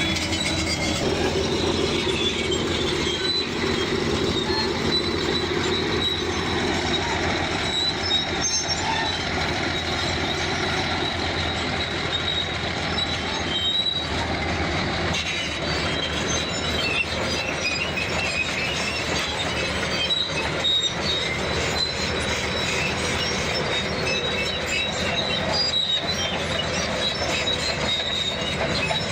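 Bulldozer working: diesel engine running steadily with a continuous high squeal from the steel crawler tracks.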